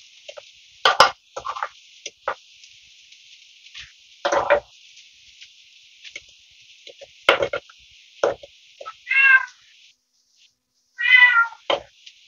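Food frying in a pan with a faint steady sizzle, broken by sharp knocks of a utensil against the pan about a second in, at about four seconds and at about seven seconds. Two short pitched calls come near the end.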